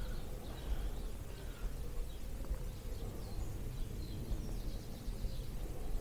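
Songbirds of the dawn chorus, heard as scattered faint chirps, over a steady low rumble of wind buffeting the microphone.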